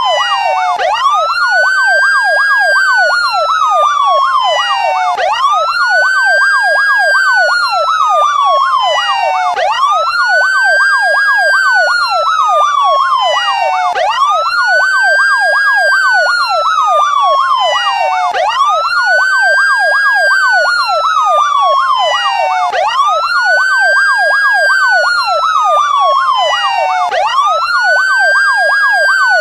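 Police siren, a slow wail that climbs quickly and falls slowly about every four and a half seconds, layered with a fast yelp sweeping up and down a few times a second. It is loud and continuous.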